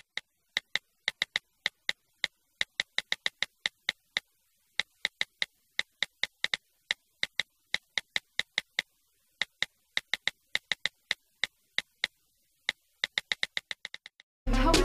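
Touchscreen phone keyboard clicks from someone texting: irregular runs of short, sharp, identical clicks, about three or four a second, with brief pauses between bursts, fading away near the end.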